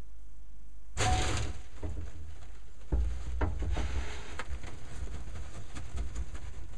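A glass vivarium door slides open with a short scrape about a second in, then several knocks and clicks as metal feeding tongs are handled close to the microphone, offering a rat to a boa constrictor.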